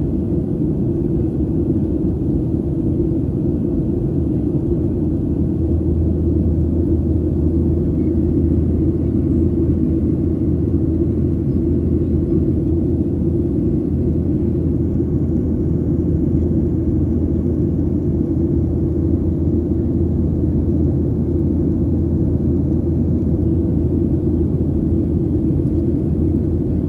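Steady low rumble of a Boeing 737's engines and airflow heard from inside the passenger cabin in flight after takeoff. A deep hum within it grows stronger about six seconds in.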